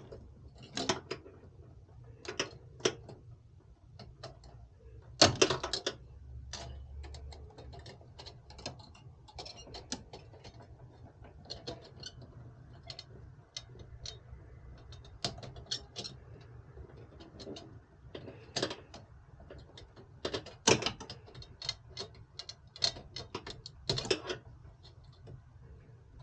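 Irregular clicks, taps and small rattles from hands working on computer hardware, with a few louder knocks, over a low steady hum.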